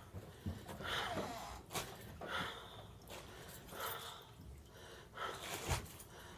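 A woman gasping for breath: a run of short, strained breaths at uneven intervals, a couple of them sharp, catching intakes. The breathing is laboured, and she puts it down to a rib she says is broken.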